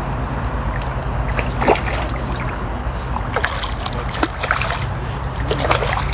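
A hooked crucian carp splashing and thrashing at the water's surface in irregular bursts as it is played toward the landing net. A steady low hum runs underneath.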